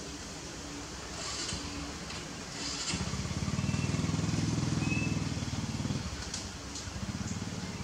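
A motor vehicle engine running, a low drone that swells up about three seconds in and drops back about three seconds later, over a steady outdoor background hiss.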